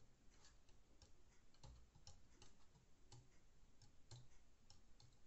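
Near silence with faint small clicks and ticks, a few a second and unevenly spaced.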